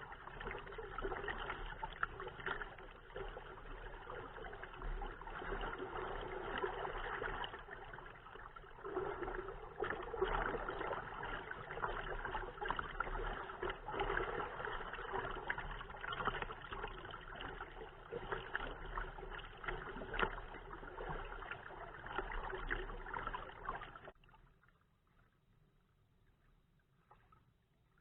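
Waves lapping and splashing against a kayak hull, with wind rumbling on the microphone. Both cut off suddenly near the end.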